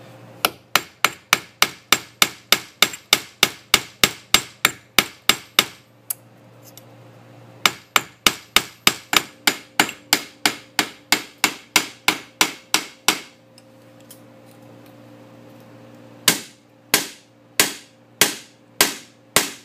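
Ball-peen hammer striking a brass hinge on the steel anvil of a bench vise. Three runs of quick metal-on-metal blows, about three a second, with pauses between them; the last run is shorter and slower. The blows are thinning the hinge's edge and moving the metal into a corner to reshape it.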